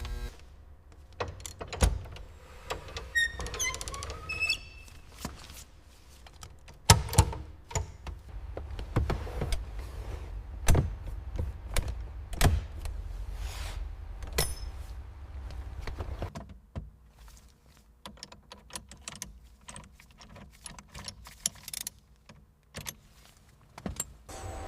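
Irregular clicks, knocks and clunks of metal car parts and hand tools being handled and fitted, with a brief squeaking a few seconds in. From about two-thirds of the way through it turns quieter, with fast light clicks.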